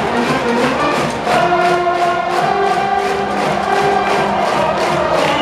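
School brass band playing a baseball cheer tune: held brass notes over a steady quick beat, with the massed cheering section's voices singing along.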